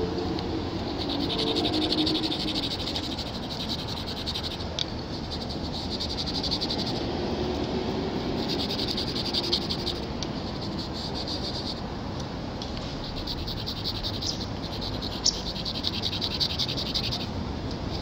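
Rapid buzzing animal trills, frog or insect-like, that come in bouts of one to three seconds, stopping and starting again several times, over a steady low rumble.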